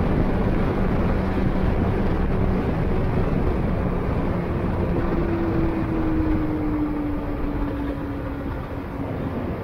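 Car driving on a race circuit: a steady rush of road and wind noise under a humming engine note, which falls slowly in pitch from about halfway through.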